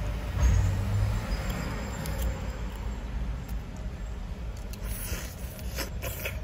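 Steady low rumble inside a car, with a few short wet clicks and smacks about five to six seconds in as a duck balut is slurped and eaten from its shell.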